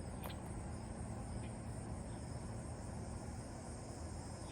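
Cicadas buzzing in a steady, unbroken high drone, with a low rumble underneath.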